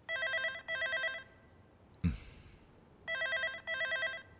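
Electronic telephone ringing with a fast trill, two double rings about three seconds apart. Between them, about two seconds in, comes a sudden short thud with a brief hiss, the loudest moment.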